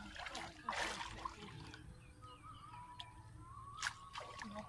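Muddy water sloshing and splashing in short, irregular bursts as a man wading waist-deep works his hands through the grassy bank, the busiest splashing in the first second.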